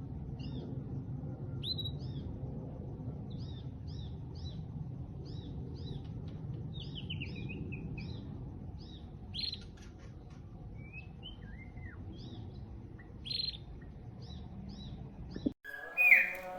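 A caged songbird chirping: short high notes given in quick pairs and clusters, several louder single calls and a couple of falling slurred phrases, over a steady low rumble. A sudden cut near the end brings in other sound.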